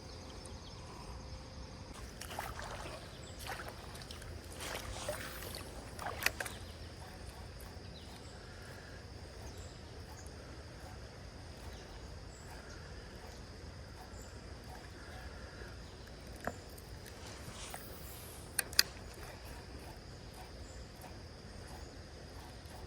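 Creek ambience: a steady rush of flowing water under a constant high insect drone. A few splashy swishes come in the first several seconds, and short sharp clicks come near the end.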